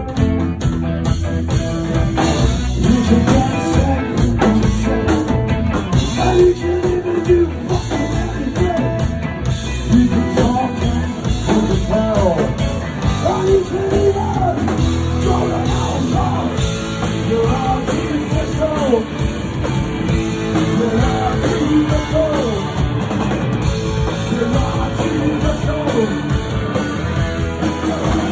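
Live punk rock band playing: electric guitars and a drum kit, with a male lead singer singing into the microphone.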